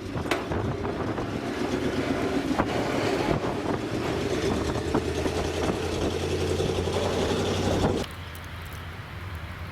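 Steady vehicle noise mixed with wind, a running rumble with a low hum, that drops suddenly to a quieter low hum about eight seconds in.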